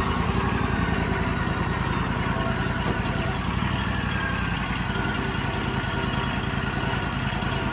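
An engine running at a steady speed with an even, rapid pulse.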